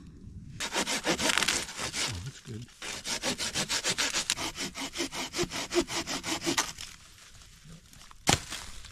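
Curved hand pruning saw cutting through a dead branch: rapid back-and-forth strokes for about six seconds that stop as the piece comes free. Near the end there is a single sharp wooden knock.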